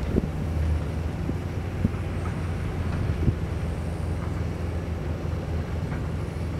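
Steady low rumble with a few faint ticks.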